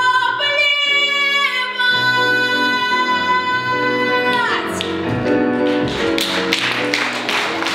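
A female singer holds the final high note of an operetta song over instrumental accompaniment and releases it about four and a half seconds in. Audience applause then starts.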